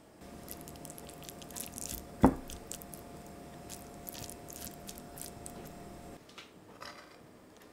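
Cooked brown rice mixed with pesto being scooped with a silicone spatula and dropped onto a ceramic plate: soft sticky squishes and light scrapes, with one sharp knock a little over two seconds in.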